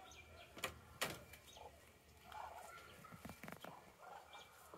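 Poultry giving a few soft, low calls, with two sharp knocks about a second in.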